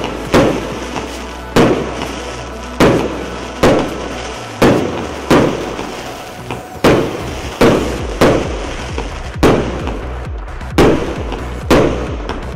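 Fireworks battery (cake), the Narodny Feyerverk "Iskushenie" NF7244, firing shot after shot at about one sharp bang a second, each with a short echoing tail.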